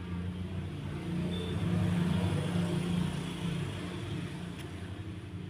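Low hum of a vehicle engine running, growing louder from about a second in and easing off after about three and a half seconds.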